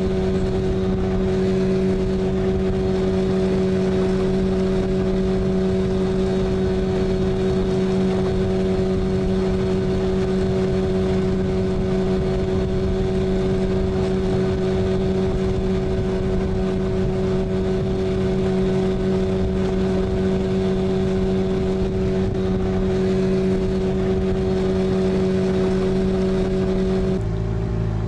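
Boat's outboard motor running at a steady, unchanging speed with an even drone. It shuts off about a second before the end.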